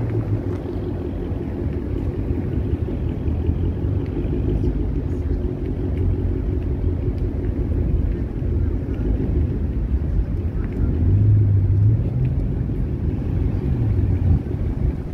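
Car engine running and road rumble, heard from inside a car driving slowly.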